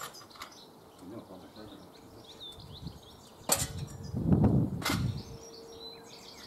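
Two sharp knocks about a second and a half apart, with faint bird chirps before them and a faint steady hum after the first.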